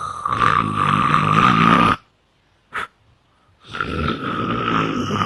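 A man imitating loud snoring: two long snores of about two seconds each, with a high whistling tone running through both and a short snort between them. It is an exaggerated, mock snore.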